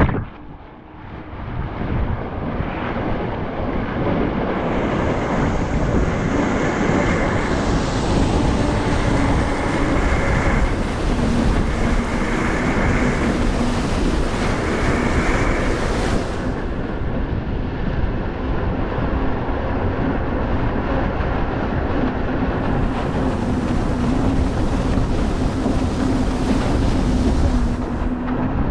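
WaveShark electric jetboard riding over the water: a continuous rush of water and wind buffeting the microphone, with a steady low hum underneath. The level dips briefly about a second in.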